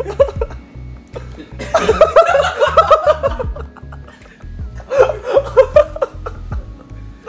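People laughing in three bouts of quick, repeated bursts, over background music with a steady low beat.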